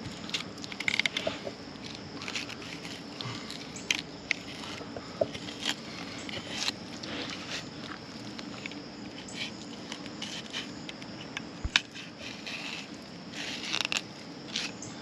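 Fillet knife cutting along a fish's backbone and through its rib bones: irregular crunching, crackling and scraping as the fillet is worked free.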